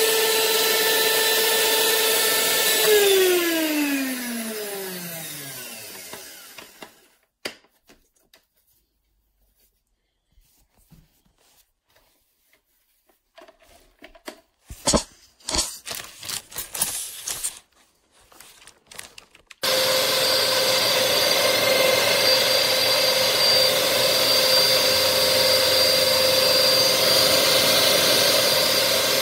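Small stand mixer's electric motor running with a steady whine, then switched off and winding down, its pitch falling over about three seconds. Several seconds of near quiet with scattered clicks and knocks follow, then the motor starts again abruptly and runs steadily.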